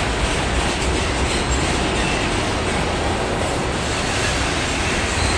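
Freight train cars rolling steadily past, steel wheels running on the rails.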